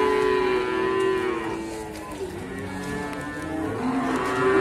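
Cattle mooing: a long, steady call that trails off about a second and a half in, followed by more, fainter moos.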